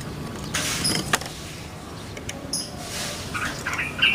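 Rustle and light clatter from a caged Barbary dove moving off its perch, loudest about a second in with a sharp knock. A few short high squeaks follow, and a brighter sound comes near the end.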